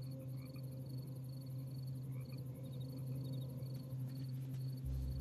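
Crickets chirping in a night-time outdoor ambience, about three evenly spaced chirps a second, over a steady low hum; a deeper low rumble comes in near the end.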